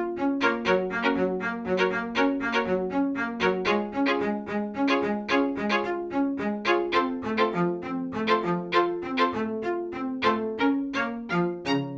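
Instrumental background music on strings, an even run of notes at about three a second.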